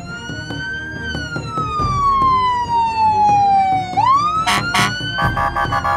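Police car siren wailing: the tone climbs quickly, slides slowly down over about three seconds, then climbs again and starts to fall near the end.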